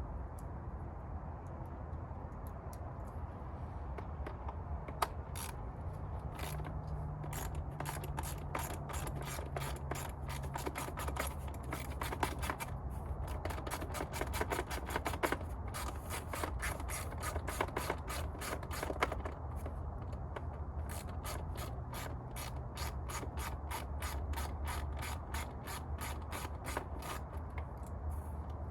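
Hand ratchet clicking in long rapid runs as fasteners are backed out of a motorcycle's rear fender, over a steady low hum.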